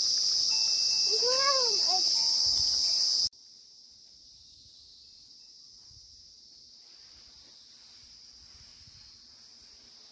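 A steady, high-pitched chorus of insects shrilling, with a short rising-and-falling call about a second in. About three seconds in it cuts off abruptly to a much fainter insect hum and light hiss.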